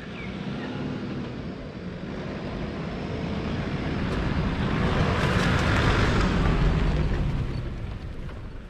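Turbo-diesel Nissan GU Patrol 4WD driving up a dirt track and passing by: the engine and tyres on the dirt grow louder to a peak about six seconds in, then fade as it moves away.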